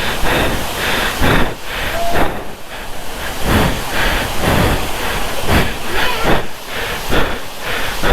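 Water rushing steadily over the overflowing edge of a reservoir, forming a waterfall, heard close up as a loud, continuous rush.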